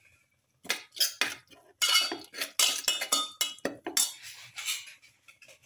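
Perforated stainless-steel spatula scraping and clinking against a steel pot while stirring a chunky masala. A quick run of strokes starts about a second in and trails off into softer scraping near the end.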